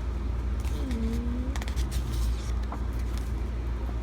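A steady low rumble, with a short hum of a voice about a second in and a quick run of light clicks and rustles just after it, from album contents being handled.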